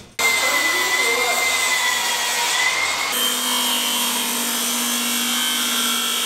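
Milwaukee cordless circular saw running and cutting through a sheet of plywood: steady saw noise with a high whine, which changes pitch about three seconds in.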